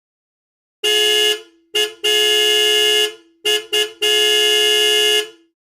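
Car horn honking six times: a short toot, then a quick toot and a long blast, then two quick toots and a long blast.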